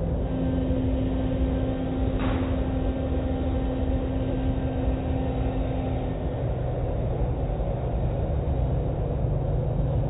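Automatic car wash heard from inside the car: cloth brushes and water spray working over the windows over a steady low machinery rumble and hum. Two short swishes stand out, about two seconds in and at the end; the hum fades out about six and a half seconds in.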